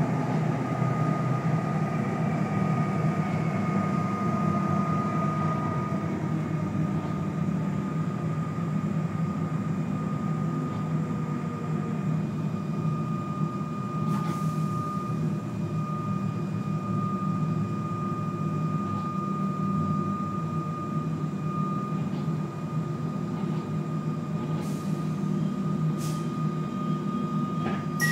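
Comeng electric suburban train heard from inside the carriage: a steady low rumble under a constant high whine. In the first few seconds several falling whines die away, and a few faint clicks come near the end.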